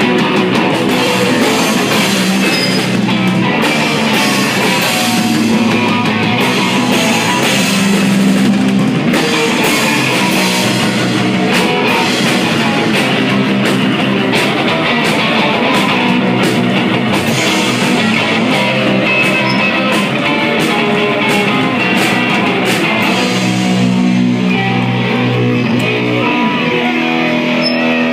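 Rock band playing live and loud: distorted electric guitar, bass and a drum kit with cymbals.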